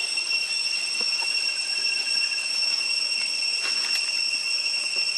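Steady, high-pitched drone of insects in the trees, one unbroken tone with a fainter one above it, with a couple of faint clicks.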